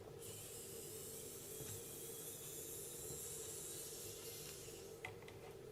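A steady hiss that starts abruptly, runs for about four and a half seconds and cuts off, followed by a couple of light clicks.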